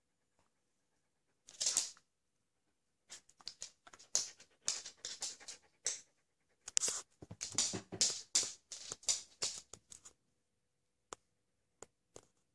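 Border collie panting in quick, uneven breathy puffs, with a few sharp clicks near the end.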